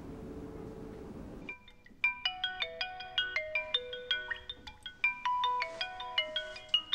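Mobile phone ringtone: a quick melody of short, bright notes, starting about a second and a half in after a low steady hum.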